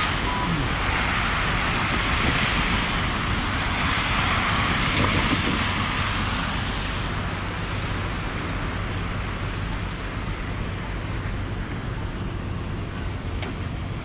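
City street traffic on wet, slushy roads: a steady hiss of tyres on the wet pavement over a low rumble of engines. The hiss is loudest for the first six or seven seconds, then eases off.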